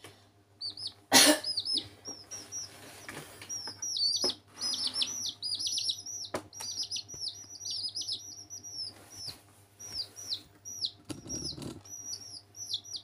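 Domestic chicks peeping almost without pause: many short, high, downward-sliding peeps. There is a brief loud scuffle-like knock about a second in, and a few fainter knocks later.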